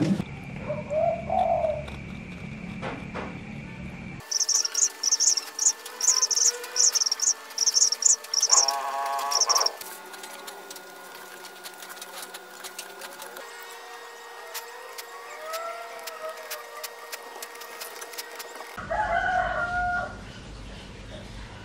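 Birds calling: a quick run of sharp, high chirps, roughly two a second, from about four to ten seconds in, then a lower call with several tones. Softer rising-and-falling calls come and go later.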